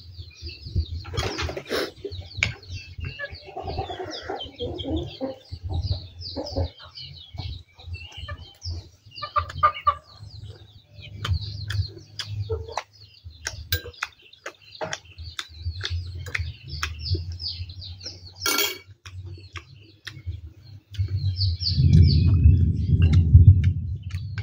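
Small birds chirping busily and chickens clucking, with sharp clicks of a spoon on a plate and quiet eating sounds. A louder low, muffled rumble comes in near the end.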